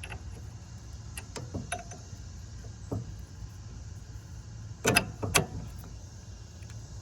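Hand work on a cart's front suspension: a few light clicks and knocks, then two louder sharp clanks about half a second apart a little before the middle-end, as parts are lifted and fitted.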